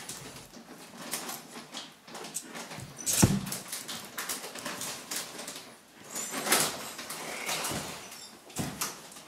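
Living AI EMO robot pet being set down on its charging dock: handling clicks and a sharp plastic knock about three seconds in as it lands on the dock, then the robot's short chirpy electronic vocal sounds.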